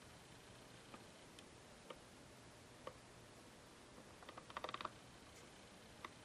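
Faint clicks of a rotary control knob being turned through its detents: single clicks about once a second, then a quick run of clicks about halfway through, the loudest part, over a low steady hum.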